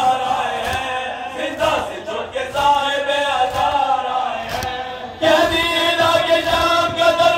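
Men chanting a noha for Imam Hussain in unison, the lead reciter amplified through a microphone and holding long mournful notes, with a few sharp slaps of chest-beating (matam). About five seconds in, the whole group comes in louder on a held line.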